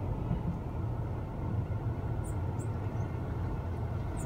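Car's engine and tyres heard from inside the cabin as it rolls slowly in: a steady low rumble.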